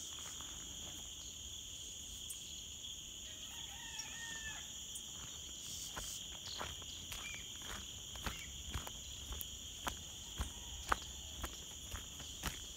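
Faint, steady high drone of insects in the countryside, with a brief distant bird call about four seconds in. From about eight seconds in, footsteps on a dirt road come in at about two a second.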